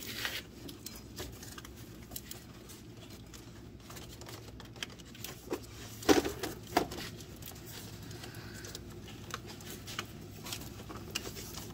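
Hands working an under-hood plastic fuse box loose from its mount: scattered clicks, taps and rattles of plastic and wiring, with the loudest knocks about six seconds in.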